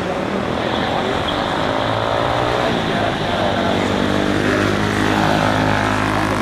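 Airliner jet engines running at the airport, a steady whine with a tone that rises in pitch about a second or two in.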